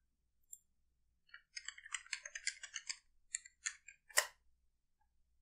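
Computer keyboard typing: a quick run of keystrokes, then a single louder key or mouse click about four seconds in.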